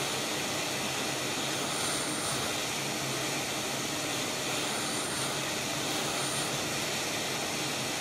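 Quick 861DA hot air rework station blowing a steady hiss of hot air, airflow set to about 80, as its nozzle heats an FFC connector's solder joints to melt them for removal.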